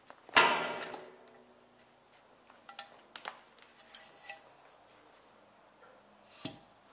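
Metal gearbox parts and tools being handled as the casing comes off a Daihatsu Sirion manual gearbox: one loud metallic clang that rings on for about a second, then a few lighter metal clinks and a dull knock near the end.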